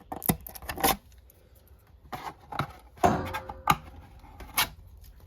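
Parts being handled during reassembly: a series of about seven sharp clicks and light knocks, spread irregularly.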